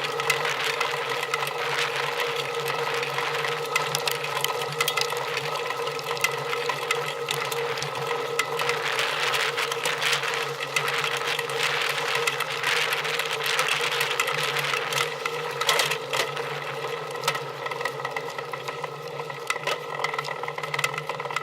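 A machine running steadily: a constant hum with rapid ticking and rattling over it.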